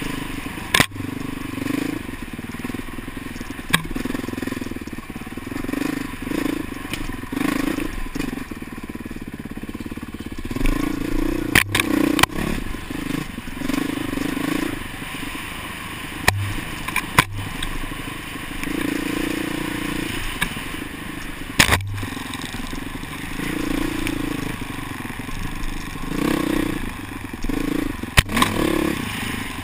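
Honda CRF450R four-stroke dirt bike engine ridden hard on a trail, its note rising and falling every second or two as the throttle is opened and closed. Heard from a helmet camera with wind rush, and a few sharp knocks now and then.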